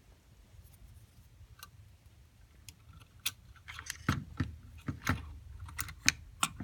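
Irregular small clicks and taps as a circuit board is handled and set into its housing, starting about three seconds in and growing busier.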